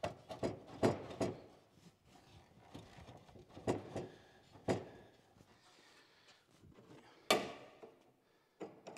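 Irregular knocks and clunks of tools and steel being handled around a new chassis rail section set on a screw jack, about eight in all, with the loudest about seven seconds in.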